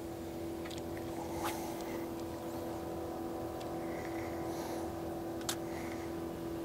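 Steady hum of a boat motor, holding one constant pitch, with a couple of faint clicks about a second and a half and five and a half seconds in.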